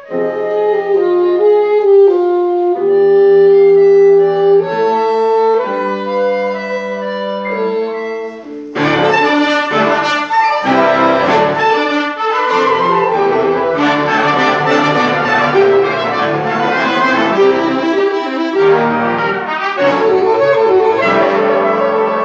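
Brass ensemble playing live: slow held chords for the first nine seconds or so, then the full ensemble comes in with a louder, busier passage of many moving notes.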